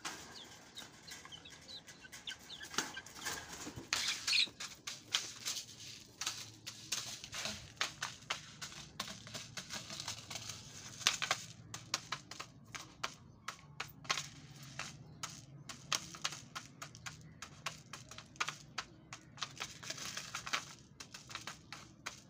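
White chickens pecking seed off a hard tiled floor: rapid, irregular sharp taps of beaks on tile, thickest from about two seconds in.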